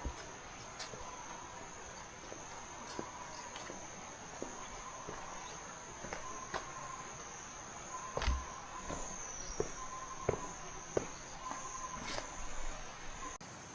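Insects trilling in a steady high-pitched tone, with a second, lower tone coming and going, and footsteps on a trail as irregular taps and scuffs.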